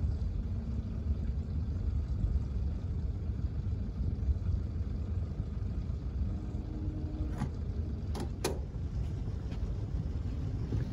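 Limb line being untied from tree branches: a few sharp clicks and knocks between about seven and eight and a half seconds in, over a steady low rumble.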